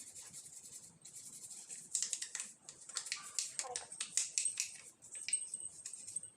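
The plastic detergent drawer of a front-load washing machine being handled and gently scrubbed by hand: a run of irregular light clicks and scrapes.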